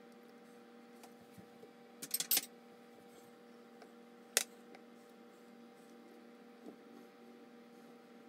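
Glass jar being handled while cabbage is packed into it: a quick cluster of sharp clinks about two seconds in, then a single sharp clink a couple of seconds later, over a faint steady hum.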